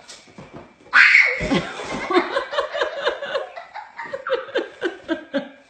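A person laughing: a loud burst about a second in, then laughter in quick repeated bursts, about three or four a second.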